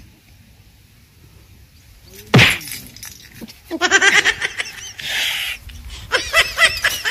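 A single sudden crash-like hit about two and a half seconds in, then a man's voice crying out in short wavering wails, twice.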